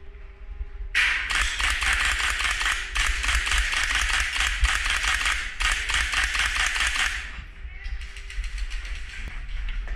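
Airsoft guns firing on full auto: fast clicking bursts, the loudest starting about a second in and breaking off twice before stopping around seven seconds, followed by fainter fire.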